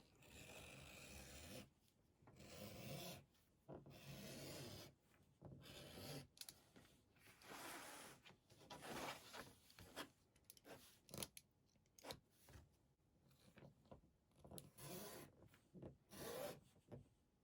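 Faint, irregular rubbing strokes on the collar material, about a dozen, each lasting around a second.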